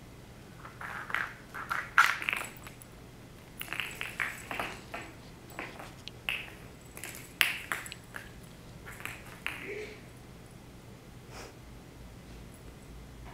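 Small plastic Easter egg batted by a kitten, clattering and skittering across a hardwood floor in a run of quick taps, loudest about two seconds in and again past seven seconds, stopping about ten seconds in.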